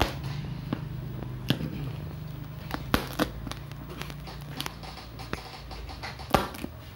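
Packing tape on a cardboard box being picked at and torn open with a small metal tool: irregular crackles, scrapes and clicks of tape and cardboard, a few sharper snaps among them.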